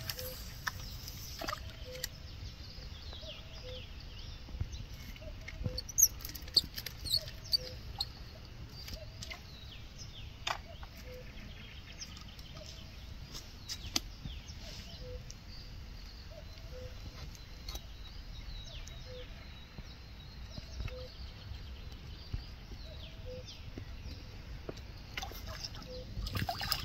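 Calm outdoor ambience with birds chirping and a faint low note repeating about every two seconds, and a few sharp clicks about six seconds in. Near the end a hooked crucian carp splashes at the water's surface.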